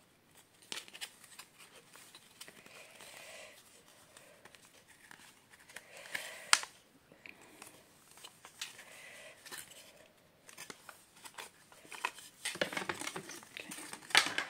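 Clicks, taps and knocks of a wooden picture frame being opened by hand, its back panel and fasteners knocking, with one sharp click about six and a half seconds in. Near the end, a thin sheet rustles as it is lifted out of the frame.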